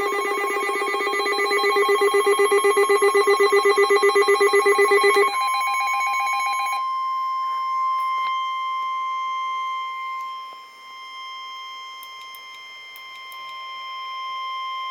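An EAS alert opens with a fast-trilling ringing alert tone for about five seconds. It then switches to the National Weather Service's single steady warning alarm tone near 1050 Hz, which dips in level partway through and cuts off sharply at the end.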